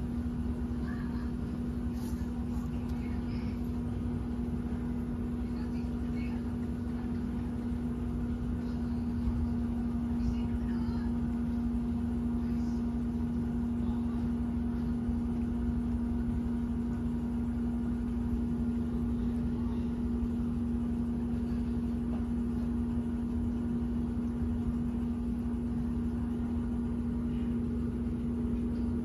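Steady mechanical hum: one constant low-pitched drone over a low rumble.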